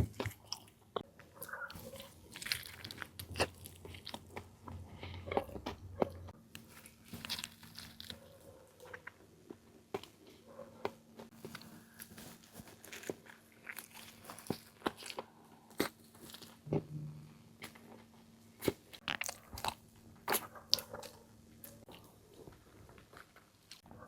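Close-up crunching and chewing of a crispy chicken roll: a dense, irregular run of sharp crackling crunches with softer chewing between them.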